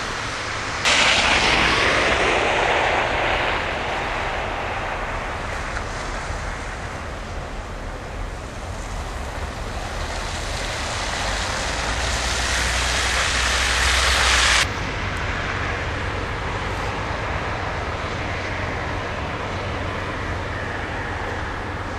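Steady rushing noise of road traffic on snowy streets, with no speech. It jumps louder about a second in, eases off, builds again and drops suddenly near fifteen seconds in.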